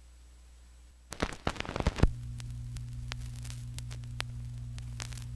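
Stylus of an Empire 4000 cartridge set down on a worn vinyl LP on a Dual 1249 turntable, heard through the direct phono signal. A burst of clicks and thumps comes about a second in as it lands, followed by lead-in groove crackle and scattered ticks over a steady low hum.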